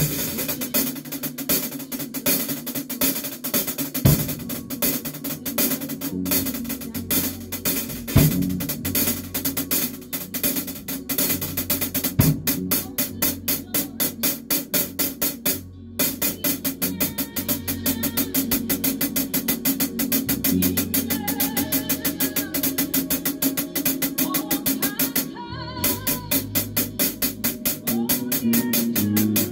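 A band rehearsing: a drum kit keeps up fast, even cymbal or hi-hat strokes over changing bass notes. The band stops dead for a split second about halfway through and again a few seconds before the end.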